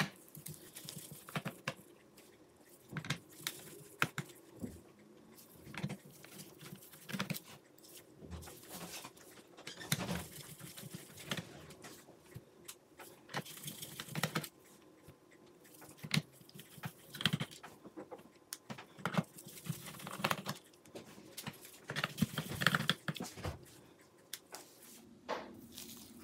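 Small screws being unscrewed from a laptop's plastic bottom panel with a JIS No. 1 screwdriver and set down on a screw mat: irregular light clicks, taps and scrapes.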